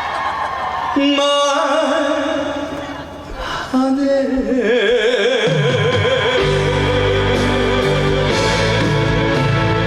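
Trot music playing over a stage sound system. About four seconds in, a melody note with wide vibrato is held, and bass and chords come in about six and a half seconds in.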